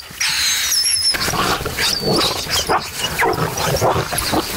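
Hunting dogs squabbling and tearing at a freshly killed wild boar's carcass as they feed, with irregular, gruff animal noises throughout.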